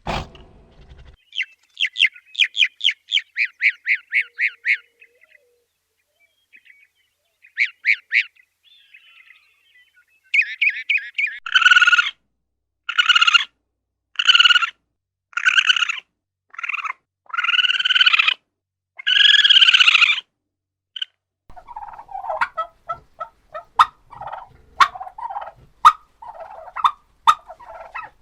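Farm poultry calling. First comes a fast run of about a dozen high chirps. Then a series of loud calls follows, each one longer than the last, and then a lower, choppy chatter of calls near the end.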